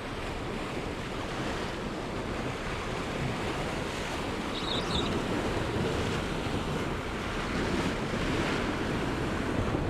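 Sea waves washing against the rocks, with wind buffeting the microphone; a brief high chirp sounds about five seconds in.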